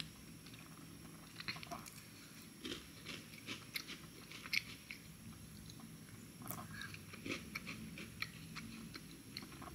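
A person chewing a crisp hojicha chocolate-chip cookie close to the microphone: faint, irregular crunches and small clicks.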